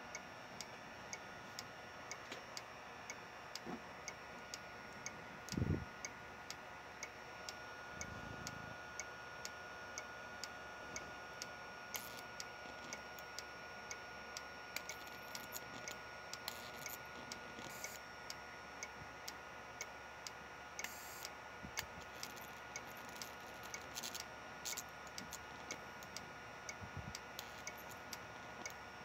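Homemade flyback transformer running with a steady high whine and irregular sharp ticks, one or two a second, of small high-voltage sparks snapping. Two dull low thumps come about six and eight seconds in.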